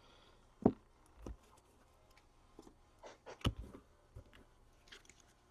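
A few scattered soft knocks and taps, the loudest about a second in and again past the middle: hands handling hockey cards, wrappers and boxes on a table.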